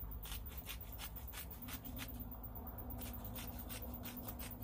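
Spice grinder being twisted over fish fillets: a rapid, even rasping of many small ticks.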